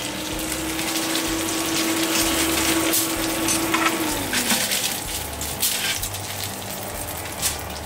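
Chicken wings sizzling in a little oil in a hot wok while metal tongs lift them out, with a few sharp clicks of the tongs. A steady low hum slides down and stops about four seconds in.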